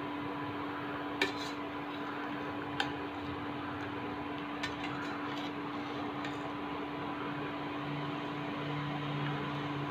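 A metal spoon stirring chicken curry in a cooking pan, clinking sharply against the pan about a second in, near three seconds and near five seconds, over a steady background hum.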